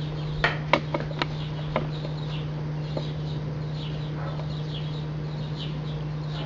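Several light clinks of a steel knife and fork on a ceramic plate in the first two seconds, then a steady low hum with faint, repeated high chirps.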